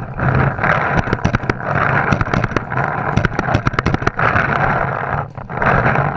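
Pump paintball markers firing and paintballs smacking against inflatable bunkers: many sharp pops, in quick runs about a second in and again around three seconds in, over a continuous loud din.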